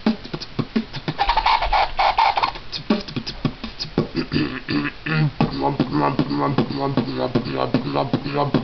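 Human beatboxing: rapid mouth-made percussion of kicks, snares and hi-hat clicks. From about halfway, a low held hummed tone runs under the beat.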